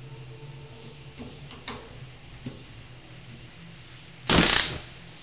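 A few light clicks over a faint low hum, then about four seconds in a sudden loud burst of hiss that lasts about half a second and fades out.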